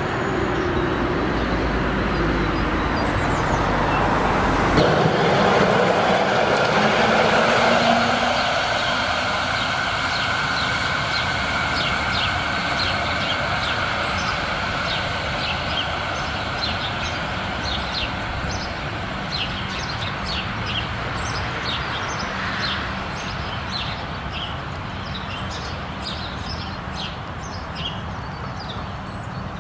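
Bogestra M-type narrow-gauge tram running along the track, its motor whine rising in pitch about five seconds in, then the running noise slowly fading. Short high chirps sound through the second half.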